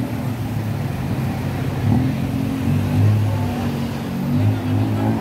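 Tuk-tuk engine running as it drives through traffic, its note rising and falling with the throttle, over general street traffic noise.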